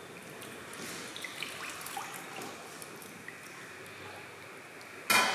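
Faint, sparse drip-like ticks, then about five seconds in a sharp metallic clang that rings on, from the rice cooker's metal lid.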